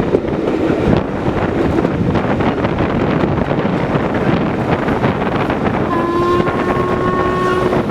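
Wind buffeting the microphone amid rain, with a steam locomotive's whistle starting about six seconds in and holding one long steady note.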